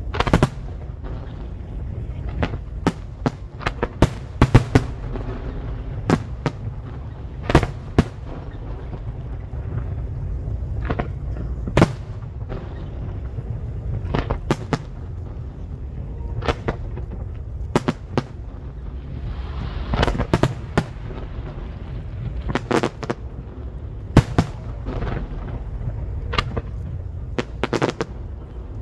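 Aerial fireworks bursting: sharp bangs at irregular intervals, some in quick clusters, over a steady low rumble.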